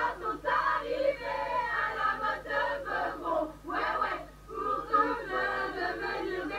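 A group of voices singing or chanting together, with a faint steady low hum underneath.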